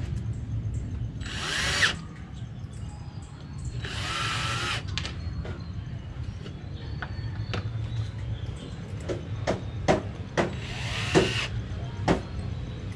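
Cordless drill-driver driving screws to fasten concealed cabinet hinges to plywood doors, in three short bursts, with a few sharp clicks in between near the end. A low steady hum runs underneath.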